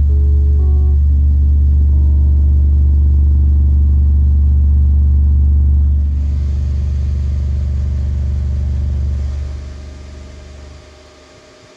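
Subwoofer driven by a JL Audio 250/1 mono amplifier playing a loud, deep, sustained bass note, with a few short higher notes at the start. The bass fades out over the last couple of seconds.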